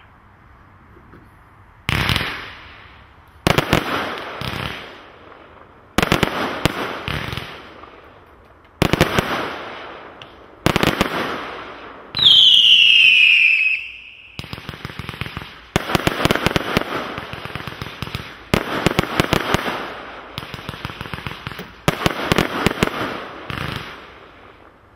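Hallmark Fireworks' Shockwave firework cake firing after a faint hiss: about a dozen shots, one every couple of seconds, each a sharp bang followed by a fading crackle. Around the middle, a loud whistle falls in pitch for about two seconds. The later shots break with dense crackling.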